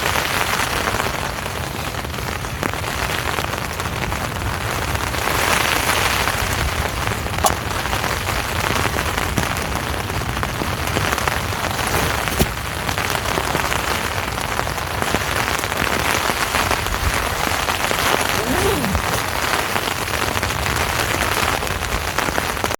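Steady heavy rain falling on a tent, swelling and easing in waves, with a couple of sharp ticks of drops.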